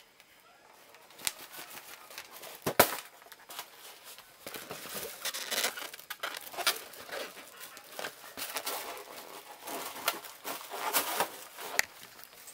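Hands squeezing and rubbing a large rubber balloon: irregular squeaking and crinkling rustle, with a sharp tap about three seconds in.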